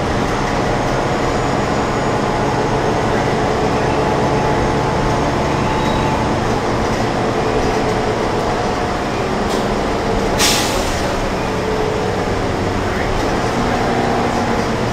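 Cabin of a city transit bus under way: a steady engine drone and road noise, with one short sharp hiss of air about ten seconds in.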